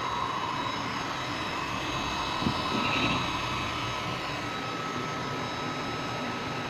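CNC laser machine running: a steady rushing noise with a thin high whine over it, and a single short knock about two and a half seconds in.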